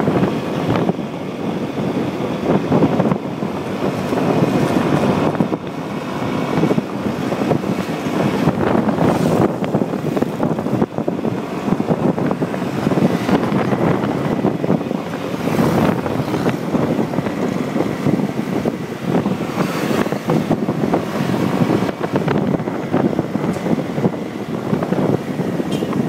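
Wind rushing over the microphone of a moving motorcycle, mixed with the motorcycle's running and road noise.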